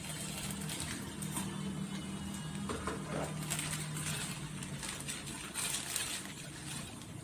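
Pot of water with cabbage and meatballs bubbling as it comes to the boil on a gas stove, over a steady low hum.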